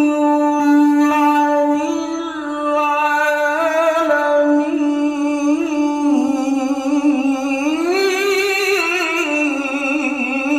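A man's voice in melodic Qur'an recitation (tilawah), sung into a microphone as one long drawn-out, ornamented phrase without a break; the pitch climbs about three-quarters of the way through and then settles back down.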